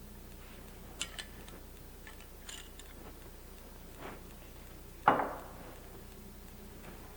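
Light clinks of lab glassware, then a single louder knock about five seconds in that rings off briefly.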